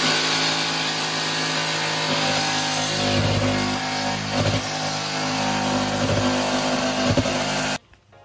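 Electric jigsaw running steadily as it trims the cat-door opening in the camper door's metal skin and foam core, with a few knocks as the blade judders. It cuts off abruptly near the end.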